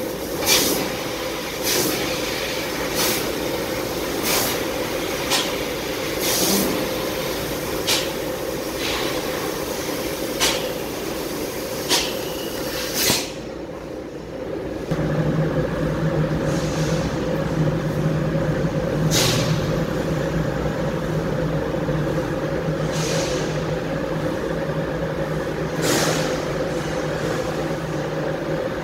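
Mitsubishi NX fiber laser cutting machine at work on thin sheet steel: a steady machine hum with a short sharp hiss about every second and a half as the head cuts one hole after another. About halfway the hisses become sparse and a lower steady drone takes over.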